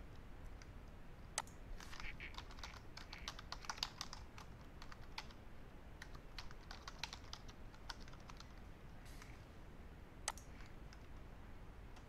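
Faint typing on a computer keyboard: a run of quick keystrokes over several seconds, then a lone click about ten seconds in.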